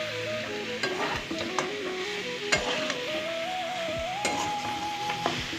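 Chicken pieces sizzling as they fry in a metal kadai, with a metal spatula scraping and knocking against the pan now and then as it is stirred. A simple background tune plays underneath.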